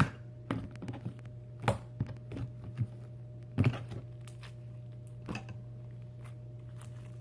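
Homemade slime being squished and pressed by hand, giving a handful of sharp, irregular clicks and pops, mostly in the first half, over a steady low electrical hum.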